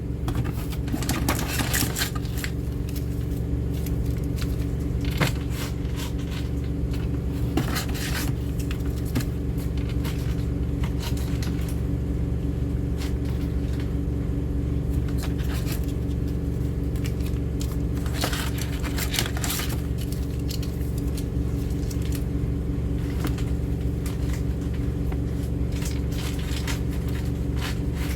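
Washing machine running with a steady low rumble and hum. Over it, packets and containers of cat food are handled in short rustling, clattering bursts every few seconds.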